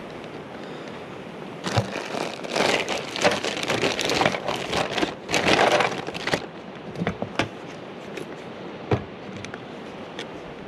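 Gloved hands pressing and working a rubber roof-pipe boot down onto a metal roof over fresh caulk: a stretch of irregular rubbing, scraping and crinkling noise from about two to six seconds in, followed by a few sharp clicks and taps.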